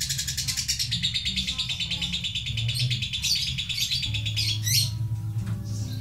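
Fischer's lovebird chattering in a long, very rapid trill (the 'ngekek' that lovebird keepers prize), which stops about four seconds in and gives way to a few short squeaky calls.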